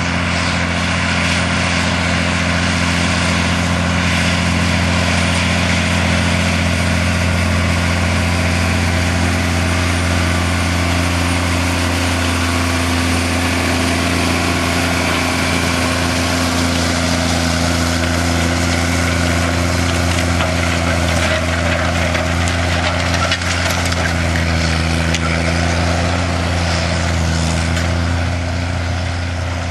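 Case IH Quadtrac tracked tractor's diesel engine running steadily under load while pulling a tillage implement, a constant deep drone with little change in pitch.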